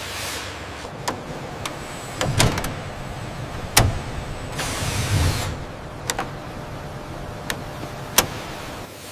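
Assembly-line ambience: a steady background hum with scattered sharp clicks and metal knocks, the loudest about four seconds in. A short burst of hiss comes about five seconds in.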